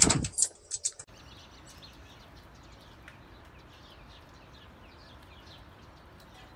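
A thump and a quick run of rattling clicks, then an abrupt change to faint bird chirping: short, high chirps repeating several times a second over a low hiss.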